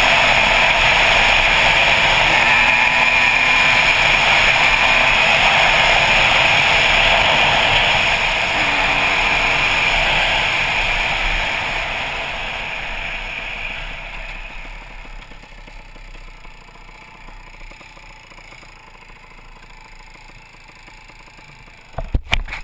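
Yamaha IT200 two-stroke dirt bike riding along a dirt road, its engine blended with rushing wind noise on a helmet camera. The sound dies down steadily over the second half as the bike slows, and a few sharp knocks come at the very end.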